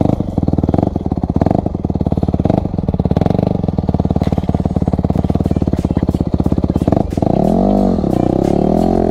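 Dirt bike engine running steadily at low revs, a rapid even stream of firing pulses. About seven seconds in it gives way abruptly to music.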